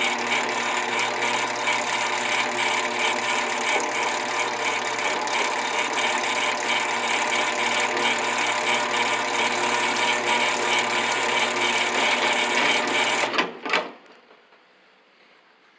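Helpmate chain-drive garage door opener running: the electric motor turns the chain through a V-belt with a steady hum over a fast, even rattle. About thirteen seconds in it cuts off with a click or two as the limit switch trips and stops the motor.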